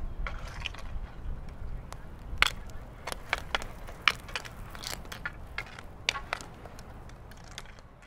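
Irregular sharp clacks and knocks of play on an asphalt ball hockey rink, sticks and ball striking the pavement, the loudest about two and a half seconds in and again about four seconds in, over a steady low rumble.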